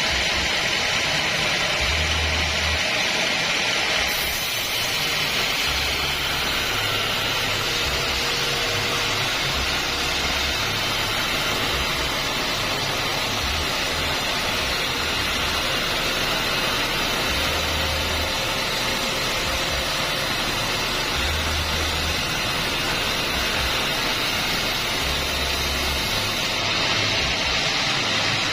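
A homemade band sawmill running and sawing acacia wood, making a steady, even noise. Its brightness changes slightly about four seconds in and again near the end.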